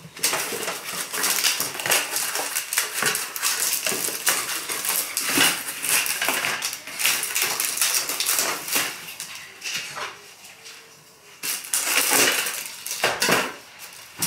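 Crinkling and clattering of packaging and accessories being handled and lifted out of a new microwave oven: a dense run of irregular clicks, rustles and light knocks.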